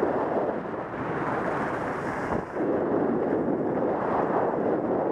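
Steady rush of wind over a helmet camera's microphone during a ski descent, mixed with skis running over firm groomed snow, with a brief dip in level about two and a half seconds in.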